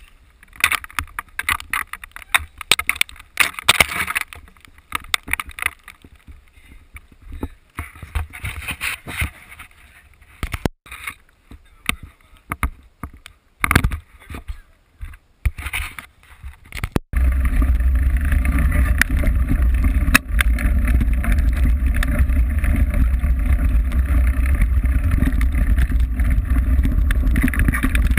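Mountain bike ride recorded from the rider's camera. First come irregular knocks and rattles of the bike over rough trail. About two-thirds of the way in, this gives way abruptly to a steady loud rumble of wind buffeting the microphone and tyres on dirt at speed downhill.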